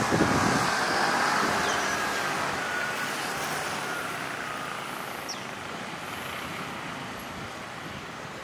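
Road traffic, its sound fading steadily over the first few seconds to a steady background hum, with a faint whine under it.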